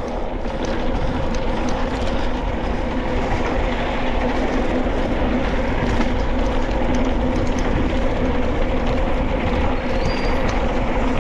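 Mountain bike rolling downhill on a dirt trail: steady tyre and wind rush with a constant low hum, and many small rattles and clicks from the bike over the ground.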